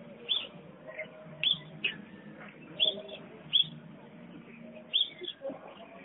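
African grey parrot giving short, high chirps, about six of them spaced a second or so apart, over a faint low hum.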